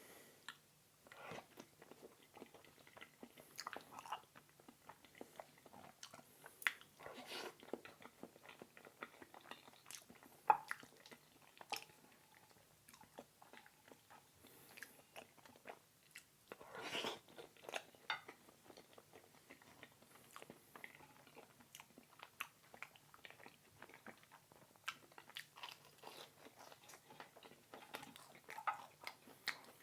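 Close-miked eating sounds: irregular crunchy bites and wet chewing of food, with louder bites about 4, 7, 10 and 17 seconds in.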